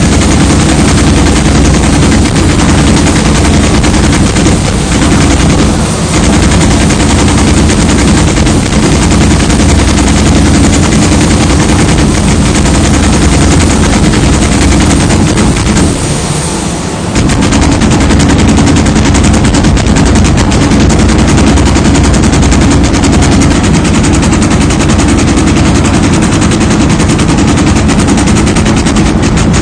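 CNC leather hole-punching machine punching in rapid, continuous strokes, a dense rattle of impacts that eases briefly about sixteen seconds in.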